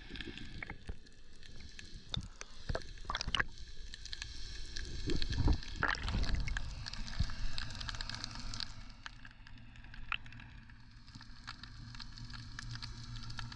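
Water sloshing and gurgling close to the microphone, with scattered sharp clicks and a faint crackle throughout. A louder low rumble comes about five to six seconds in.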